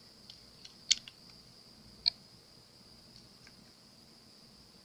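A few faint, light clicks and ticks from handling the hard cured resin bird as the last bit of the silicone mould comes off. The two clearest come about one and two seconds in, over a faint steady hiss.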